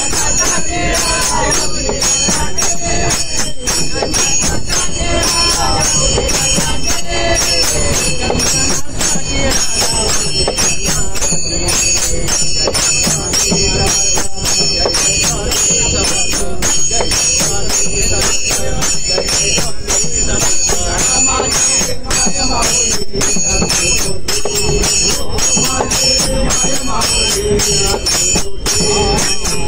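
Devotional bhajan: a group of men singing, with small brass hand cymbals (taal) ringing and clashing in a steady rhythm.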